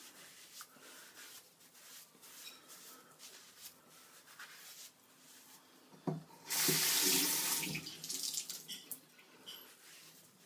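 Faint rubbing of a sponge on skin, then about six seconds in a bathroom tap runs for a couple of seconds, water splashing into the basin as the sponge is wetted, and is turned off.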